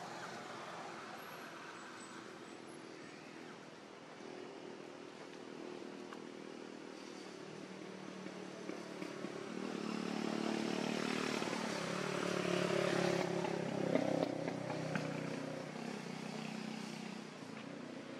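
A vehicle engine running, growing louder past the middle and then fading near the end.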